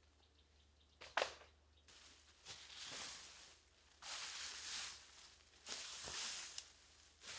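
A rake dragged through dry leaf litter and twigs on a forest floor, in about four rustling, scraping strokes of roughly a second each, with a sharp knock about a second in.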